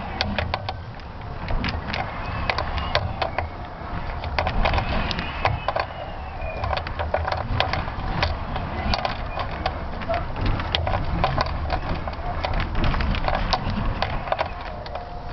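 Rapid, irregular crackling and creaking clicks from a high-altitude balloon's camera payload as it hangs and sways in flight, over a steady low rumble.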